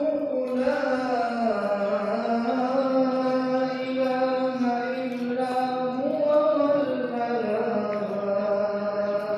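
Islamic religious chanting by a single voice, held in long notes that glide slowly up and down.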